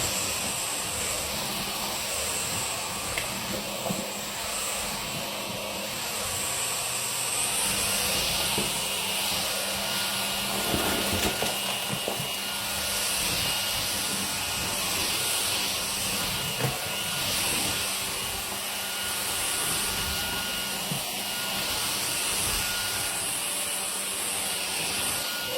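Cordless vacuum cleaner running steadily: a motor whine over rushing air, swelling and easing slightly in loudness.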